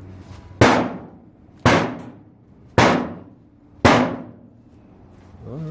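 Four hard stabs of an out-the-front knife into a clothes dryer's sheet-metal cabinet, about a second apart, each a sharp metallic bang that rings briefly.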